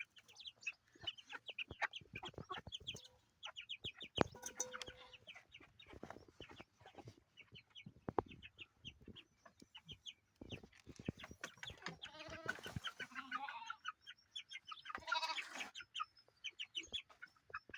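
Many chicks peeping in a steady chorus of short, high chirps, with lower chicken clucks about two-thirds of the way through and again near the end, and a few sharp knocks.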